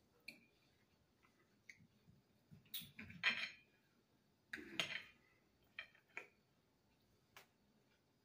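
Fork and knife clinking and scraping on a plate, in a series of short sounds, with the two loudest a little past the middle.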